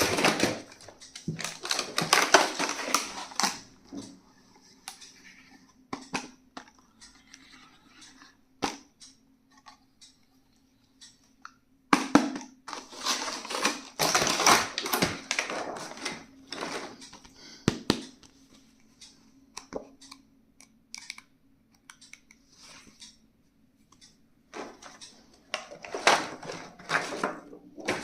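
Stationery packaging being handled and opened: crinkling plastic and paper with sharp clicks and taps, in bursts of a few seconds separated by quieter stretches of occasional clicks.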